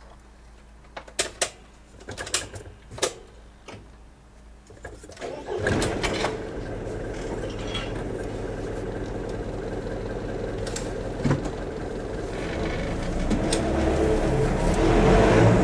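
Clanks and knocks of manually swung level-crossing gates being opened and latched, several in the first few seconds. About five seconds in, a car engine starts and runs steadily, growing louder near the end as the car moves off.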